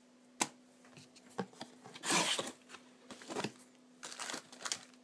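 Paper and cardboard packaging handled by hand: a sharp click about half a second in, then rustling, loudest around two seconds in, with a few shorter rustles after. A faint steady low hum runs underneath.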